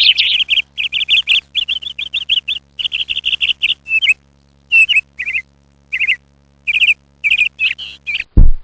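Small bird chirping in quick trilled phrases of a few notes each, broken by short pauses. A deep beat starts right at the end.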